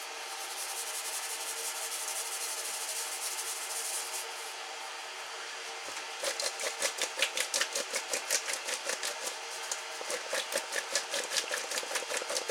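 A pepper mill grinding over a bowl for about four seconds, a steady gritty rasp. Then, from about six seconds in, butter-coated potato chunks are shaken and tossed in an enamel bowl, a rhythmic rattling swish about three times a second.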